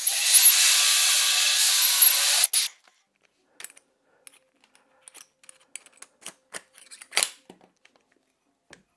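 Cordless drill driving a hole saw through a wooden board, a steady cutting noise that stops abruptly about two and a half seconds in. Then a scattering of light clicks and knocks as the hole saw is snapped off its quick-release arbor and the plug is cleared.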